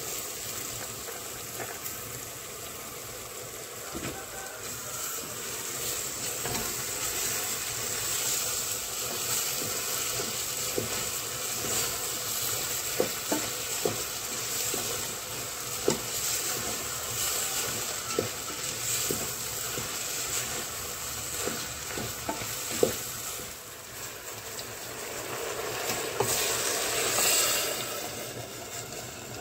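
Boiled barbunya beans sizzling in hot tomato sauce in a steel pot as they are tipped in and stirred with a wooden spoon, the spoon knocking sharply against the pot again and again past the middle. Near the end water is poured into the pot, a louder rushing hiss that then dies down.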